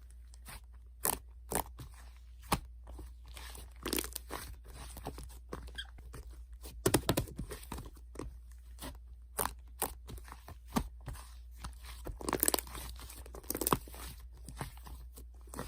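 Slime being squished and stretched by hand, giving irregular crackling clicks and short sticky pops.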